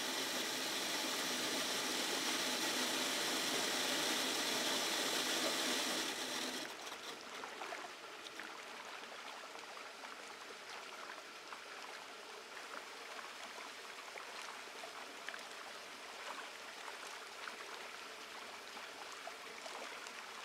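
A steady mechanical rushing cuts off abruptly about six and a half seconds in. After that come light, scattered splashes and plinks of hybrid bluegill feeding at the pond's surface.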